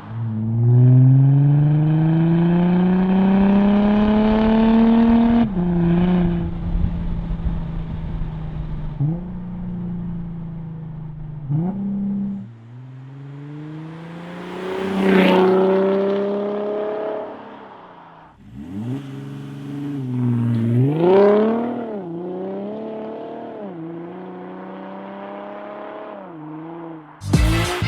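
Audi A5 3.0 TDI V6 turbo-diesel running through a straight-piped 2.75-inch exhaust with no catalyst or DPF and a Magnaflow muffler. Under throttle the engine's pitch climbs smoothly for about five seconds, then drops sharply. After that it holds a steadier note, broken by several shorter rev rises and falls.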